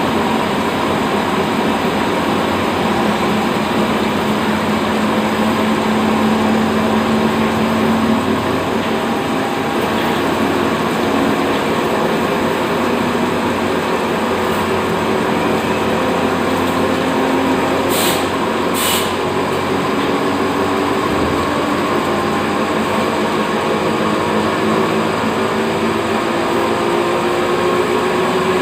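CNC machine face-cutting a workpiece: steady machining noise of the spindle and the cut. A hum slowly rises in pitch over the last several seconds, and two sharp clicks come about two-thirds of the way through.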